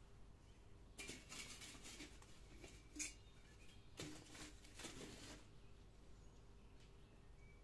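A galvanized sheet-metal chimney tube set down over lumps of charcoal in a brick grill to draw the fire: short spells of scraping and crunching of metal on charcoal, with one sharp clink about three seconds in.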